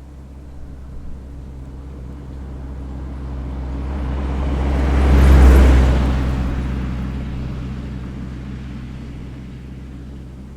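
A road vehicle driving past: a low engine hum and rushing noise that build to a peak about halfway through, then fade away.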